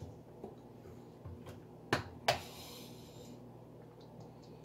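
Handling of a plastic cooking-oil bottle over a stainless steel pot: two sharp clicks about a third of a second apart, the second followed by a brief hiss, over a faint low hum.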